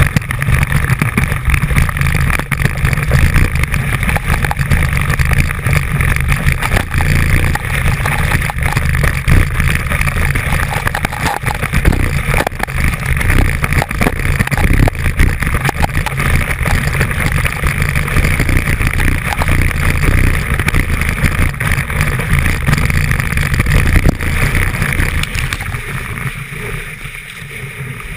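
Ski running fast through loose snow, heard from a camera clamped at the binding: a loud rumbling rush of snow and wind against the housing with constant rattling and clatter, easing off a little near the end.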